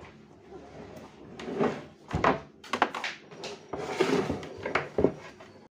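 An LED TV's plastic casing knocking and scraping against a workbench as it is handled and turned over, a series of short thuds and rubbing sounds.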